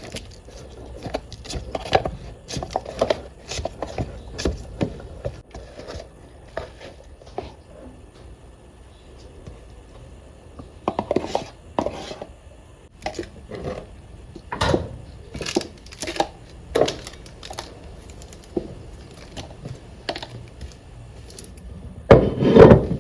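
Irregular knocks and clatter of kitchen items being handled and set down, some with a wooden sound, with a louder rattle near the end.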